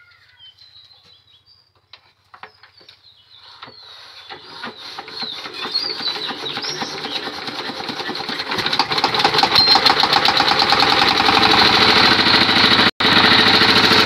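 Small single-cylinder diesel engine being started: after a few light clicks it builds up over several seconds, then runs steadily and loud with a rapid even beat. The sound drops out for a moment near the end.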